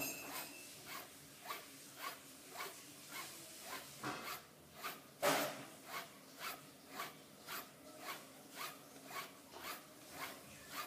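Kamisori (Japanese straight razor) being stropped on a hanging leather strop: short swishing strokes of the blade along the leather, about two a second, one louder about five seconds in.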